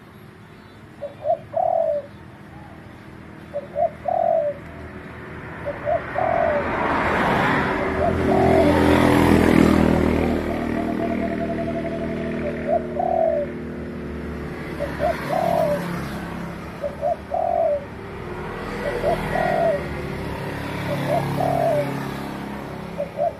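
Spotted dove cooing, short rhythmic coo-coo-croo phrases repeated about once every two seconds. In the middle a broad background noise swells up, louder than the calls, and fades away again.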